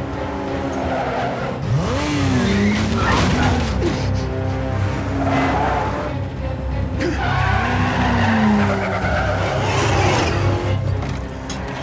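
Car chase sound: a car's engine racing and tyres squealing in several rising-and-falling bursts, over a film score with a steady low drone.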